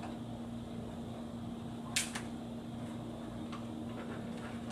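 A steady low hum with a sharp plastic click about two seconds in and a fainter tap later, as the airwasher's plastic housing parts are handled.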